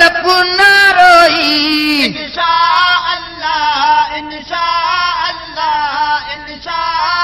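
Devotional naat singing: a single voice draws out long, wavering melismatic notes in phrases of about a second each.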